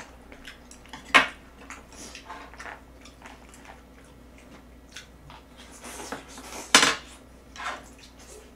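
Chopsticks clicking and scraping against small bowls and dishes: a scatter of light clicks, with two sharper knocks about a second in and again near seven seconds.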